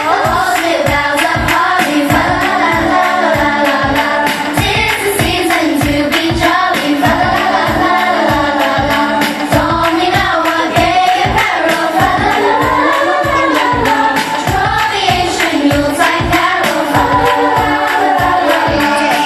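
A young choir of mostly girls singing a pop-style song over a backing track with a steady beat.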